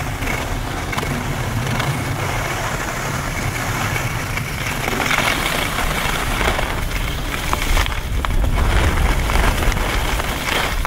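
Wind buffeting the camera microphone as a skier runs downhill, a steady deep rumble, mixed with the hiss and scrape of skis on packed snow and a few small ticks.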